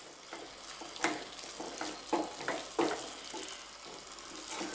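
Mushroom and onion fry with grated coconut sizzling in a stainless steel pan as a wooden spatula stirs and scrapes through it, with a few sharp knocks of the spatula against the pan. The mix is cooking down to dry off its last water.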